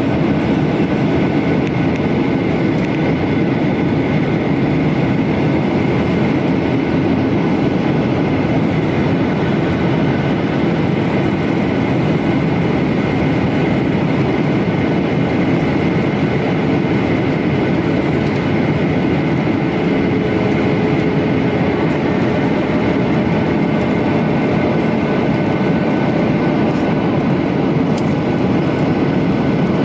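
Steady noise of a Boeing 737-900ER's CFM56 engines and airflow heard from inside the passenger cabin, a low, even rush with a few faint steady whines over it.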